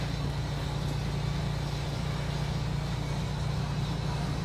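Steady low machine hum with a hiss over it, unchanging throughout.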